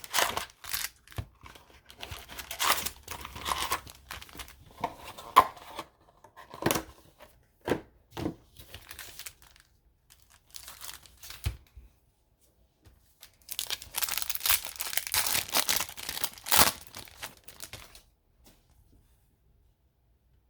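Trading card packaging being handled and opened: a plastic wrapper crinkled and torn, in irregular bursts with small clicks, then a longer run of loud crinkling and tearing about two-thirds of the way in.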